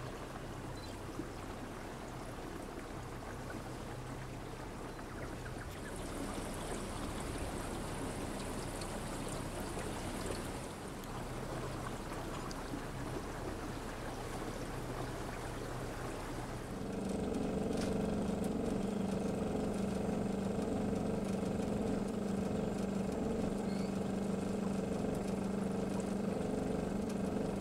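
Motorboat engine running with water rushing past the hull. About two-thirds of the way through, the engine gets louder and its steady low note steps up in pitch.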